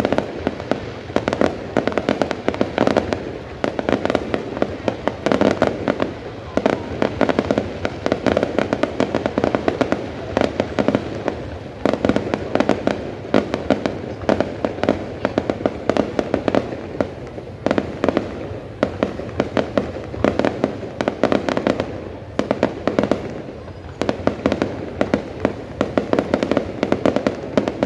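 Fireworks display going off without a break: a dense stream of bangs and crackling, with louder clusters of reports every second or two.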